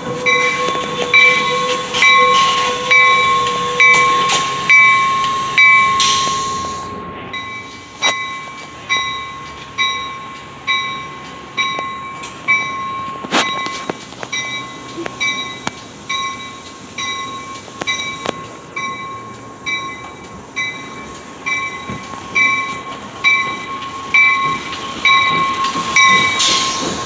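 A bell ringing steadily, about once a second, as an Amtrak California passenger train rolls past. There are a few sharp clicks from the passing cars, and the sound breaks off briefly about seven seconds in.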